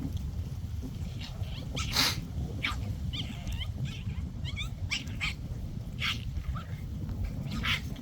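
Micro bully puppies play-fighting, giving short high yips and squeals about a dozen times, the loudest about two seconds in, over a steady low rumble.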